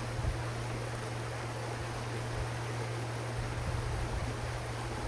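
Steady background noise between sentences: an even hiss over a constant low hum, with no distinct events.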